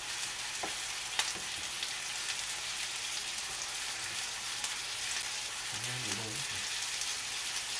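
Chicken breast steaks sizzling steadily in a frying pan, with a few sharp knife taps on a cutting board in the first second or so as chives are trimmed.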